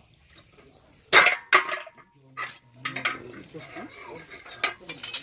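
Metal clanking: a thin metal bar knocking against the metal stands it rests on, two loud clanks a little after a second in, then lighter clinks.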